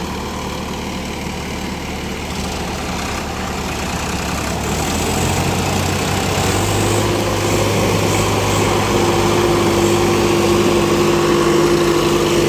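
Two tractor diesel engines working under heavy load as the tractors pull against each other. About five seconds in the engine note steps up as the throttle is opened, and it stays high and grows louder to the end.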